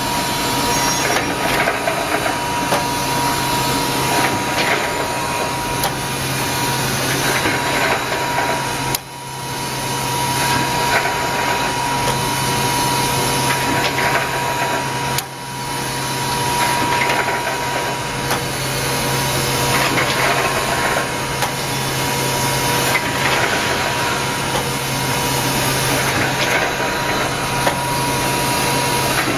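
Automatic welded wire mesh fence machine running: a steady, dense mechanical noise with a low hum and a constant high whine. It dips briefly twice.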